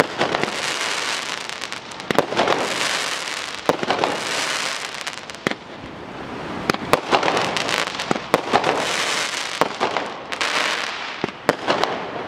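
Fireworks display: aerial shells bursting with many sharp bangs at irregular intervals, with a rushing hiss swelling between them.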